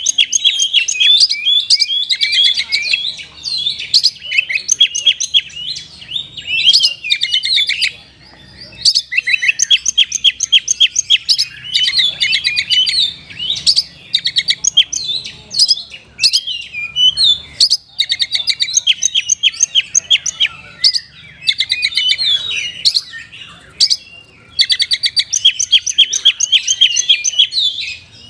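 Oriental magpie-robin (kacer) singing, with phrases of fast repeated chirps and trills in the kapas tembak style, broken by brief pauses about three times.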